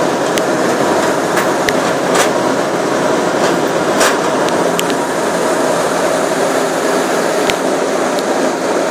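Plaquemine ferry under way on the Mississippi: a steady, loud rumble of engine and rushing water, with a few faint clicks.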